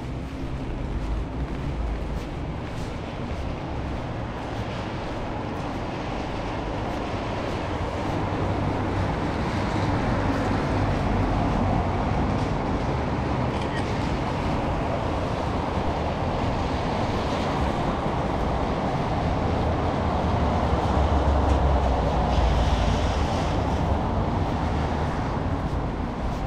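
Tokyo Metro Marunouchi Line subway train running, a steady rumble that builds over several seconds and is loudest near the end.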